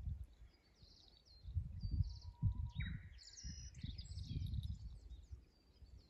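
Spring birdsong: several small wild birds singing with short, repeated high notes. A Japanese bush warbler (uguisu) is among them, with one call that holds a low whistle and then breaks into higher notes about three seconds in.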